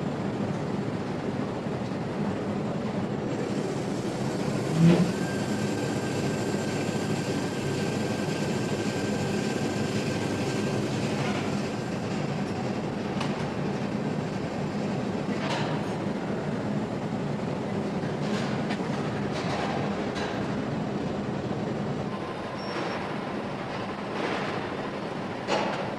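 Steady din of factory-floor machinery, with a single loud knock about five seconds in and a smaller one near the end.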